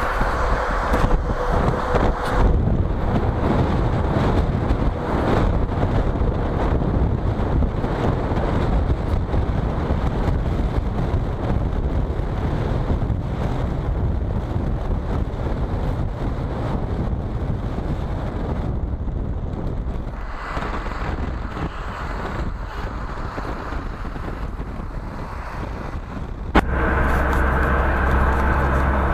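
Road and wind noise heard from inside a car driving on a wet highway: a steady rushing hiss of tyres and air. Near the end there is a sharp click, after which a steadier, slightly louder hum with faint held tones takes over.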